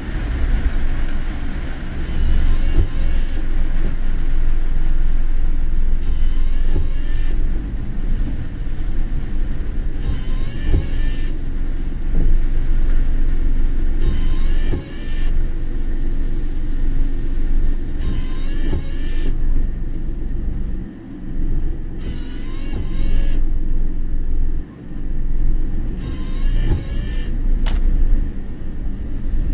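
Car driving with a steady low rumble of engine and road. A brief hissing sweep comes back about every four seconds.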